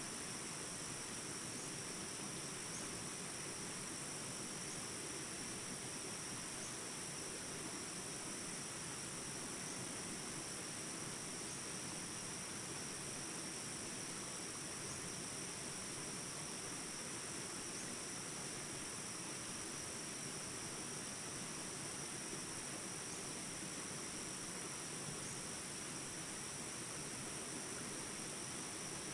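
Small jungle-stream rapids rushing steadily, with a continuous high-pitched insect chorus over the water.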